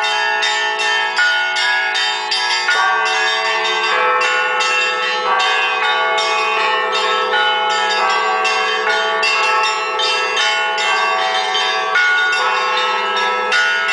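Orthodox church bells rung together in a festive Easter peal: quick strikes of the small bells, about four a second, over the steady ringing of larger bells.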